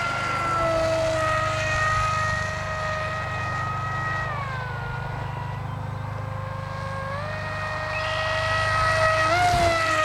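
AXN Floater-Jet RC plane's electric motor and propeller whining at high throttle in flight. The pitch drops about four seconds in, climbs again near the end, then falls off as the plane passes.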